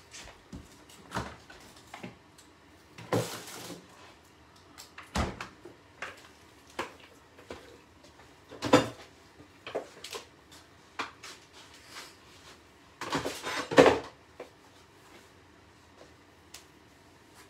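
Kitchen clatter: a string of separate knocks and clicks, like cupboards, drawers and crockery being handled, with the loudest knocks about nine and fourteen seconds in.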